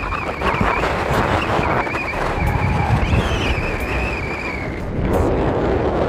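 Strong wind buffeting the microphone with a steady, uneven rumble. A thin, wavering high whistle runs through it and stops about five seconds in.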